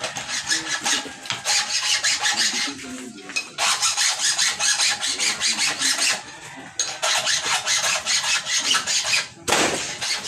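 Chainsaw chain being sharpened with a hand file: quick rasping strokes of the file across the cutter teeth, in runs of a couple of seconds broken by three short pauses.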